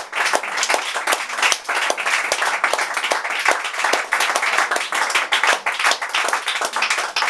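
Audience applauding: many hands clapping in a dense stream, with one person's claps sharp and close.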